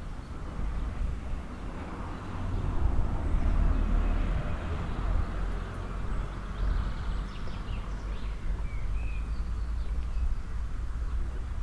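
Outdoor small-town ambience: a low rumble under a steady rush of noise that swells a couple of seconds in, with a few short bird chirps about two-thirds of the way through.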